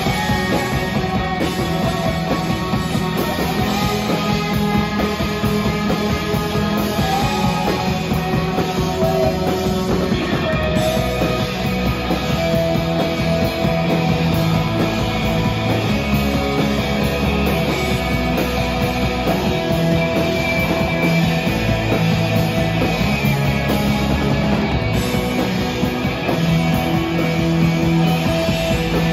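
Live rock band playing loud and steady: electric guitars over a drum kit.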